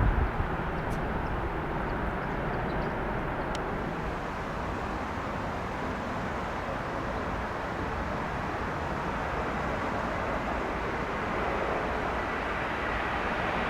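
Distant jet airliner engines, a steady rumble and hiss. Near the end a thin high engine whine comes in and the noise grows louder.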